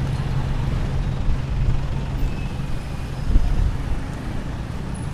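Busy street traffic: motorcycle and other vehicle engines running and passing close by, a steady low engine hum with a louder rumble swelling briefly about three seconds in.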